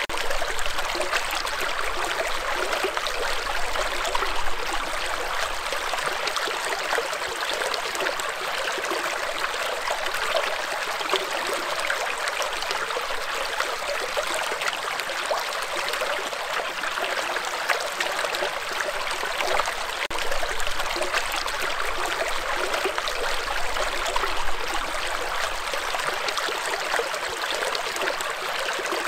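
Shallow rocky stream: water running and rippling over and between stones in a steady, even rush.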